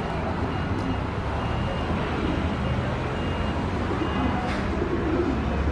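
Steady city traffic rumble, with a faint short high beep repeating every second or so.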